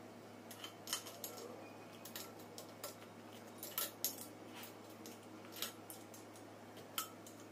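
Irregular light metallic clicks and clinks of hand tools and small metal parts being handled while a PCP air compressor is worked on by hand.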